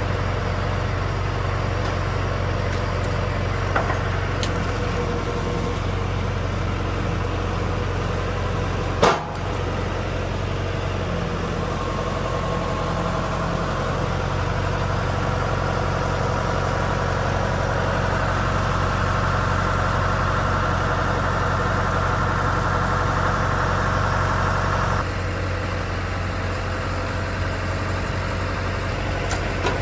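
Engine running steadily at a constant speed. A higher whine comes in about eleven seconds in and stops abruptly about twenty-five seconds in, and there is one sharp knock about nine seconds in.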